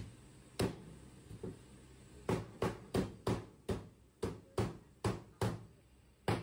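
Meat cleaver chopping through roast duck on a thick round chopping block: about a dozen sharp chops, two slow ones at first, then a quicker run of roughly three a second, and one last chop at the end.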